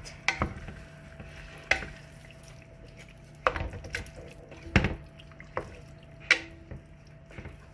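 A spoon stirring a thick meat-and-vegetable spaghetti sauce in a pot, knocking against the pot at irregular moments, over a low steady hum.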